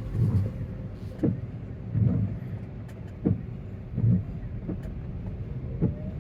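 Windshield wipers sweeping back and forth on a car in heavy rain, heard from inside the cabin, with a thump or squeak about once a second over steady rain and road noise.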